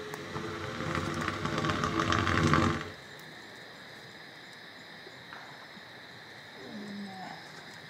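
Wild Asian elephant roaring for nearly three seconds, growing louder before it cuts off suddenly.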